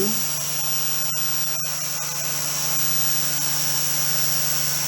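Quadcopter drone's electric motors spinning steadily, a constant high whine over a low hum, dipping briefly twice about a second in.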